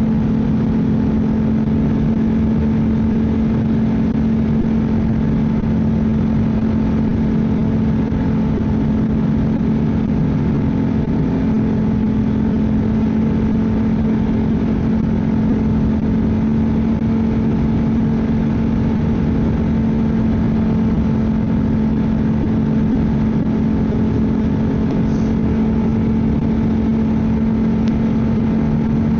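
Ski-Doo snowmobile engine running steadily at cruising speed, with a constant, even engine note.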